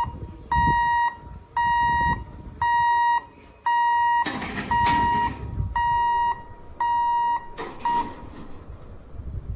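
Electronic warning beeper sounding a steady high beep about once a second, each beep a little over half a second long. A short rush of noise comes about four seconds in. The beeping stops about eight seconds in, the last beep cut short.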